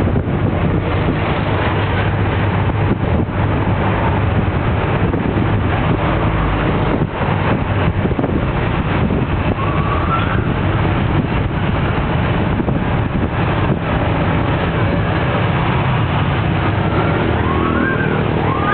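Diesel engine and road noise of a moving jeepney, heard from on board: a loud, steady rumble with wind and tyre noise. A few brief whistling pitch glides cut through about ten seconds in and again near the end.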